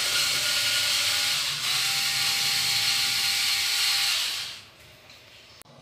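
Cordless drill running against the ceiling, a steady whine with a gritty hiss that dips briefly and stops about four and a half seconds in.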